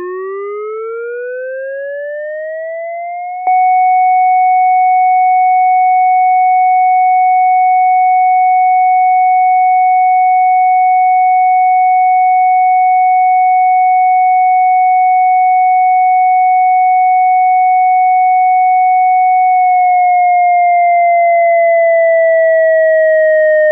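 ASC digital electronic siren controller's synthesized 'Fire' signal. A siren tone glides up for about three and a half seconds, jumps louder and holds one steady pitch for about sixteen seconds, then begins a slow downward glide near the end.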